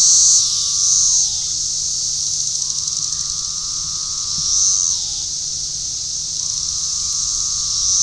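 Loud chorus of 17-year periodical cicadas: a steady high buzz that swells and fades every few seconds, under a lower droning call that drops in pitch at its end and comes round again every few seconds.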